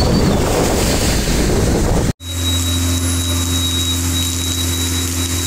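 Wind buffeting the microphone during a rainstorm, a loud, even rushing. About two seconds in it cuts off abruptly. A steady low mechanical hum with a thin high whine follows, over a lighter hiss of rain.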